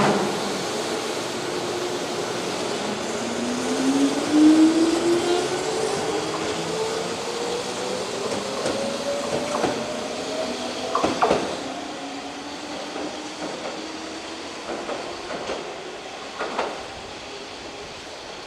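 Keihan 8000 series electric train pulling away: the motor whine rises steadily in pitch as it accelerates, with a few clacks of wheels over rail joints, the sound fading as the train recedes.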